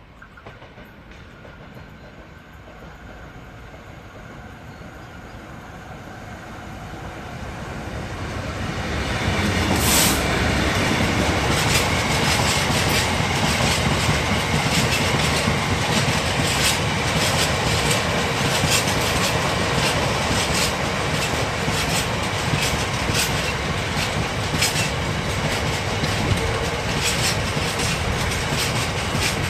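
A Class 66 diesel freight locomotive, whose EMD two-stroke engine grows steadily louder as it approaches and is loudest as it passes about ten seconds in. A long train of empty IOA bogie ballast wagons then rolls by, its wheels clicking over the rail joints.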